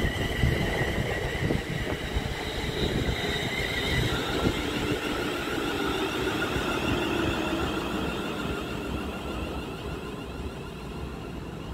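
Train running through the station: wheels rumbling and knocking on the rails under a high whine that drops in pitch about four seconds in, then gradually fading.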